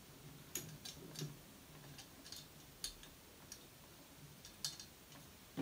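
Faint, irregular light clicks and taps of a bolt and small metal parts being handled and pushed through a WCP gearbox into a chassis rail.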